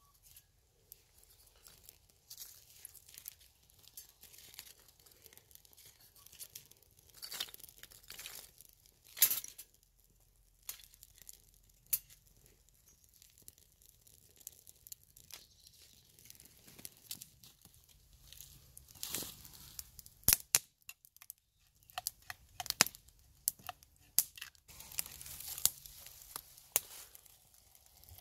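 Split kindling burning in a small folding steel hobo stove, crackling with irregular sharp snaps and a few louder cracks.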